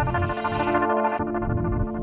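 Electronic background music: held synthesizer chords over a steady low beat.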